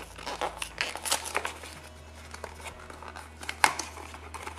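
Paper seal being peeled and torn off a small cardboard blind box and its flaps pulled open: irregular crinkling and tearing. There is one sharp snap about three and a half seconds in.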